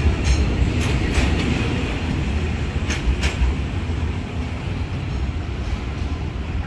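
Container wagons of a freight train rolling past close by, low rumble with a few sharp clacks of wheels over the rail joints in the first few seconds. The rumble then slowly fades as the tail of the train moves away.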